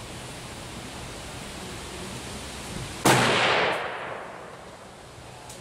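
A single rifle shot from a DPMS Oracle AR-15 firing 5.56 mm M855 ammunition, about three seconds in. The report rings on and dies away over about a second.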